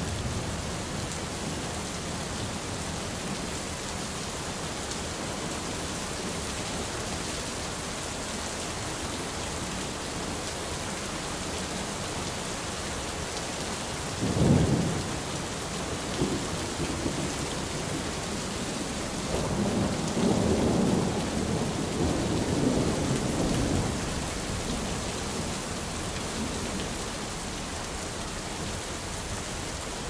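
Heavy rain falling steadily and splashing on a wet surface. About halfway through comes a sudden loud clap of thunder, followed a few seconds later by a longer rolling rumble of thunder.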